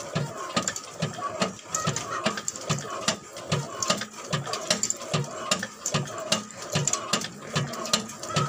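Old Ruston Hornsby stationary diesel being cranked by hand to start, its big flywheel turning over in a steady rhythm of low thuds about two and a half a second, with sharp mechanical clicks over it.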